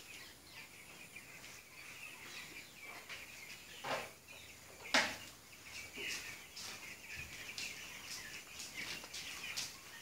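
A large flock of two-week-old broiler chicks peeping, a continuous chorus of many short high chirps, with two sharp clicks about four and five seconds in.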